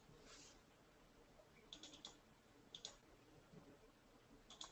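Faint computer mouse clicks in small groups of two or three, over near-silent room tone.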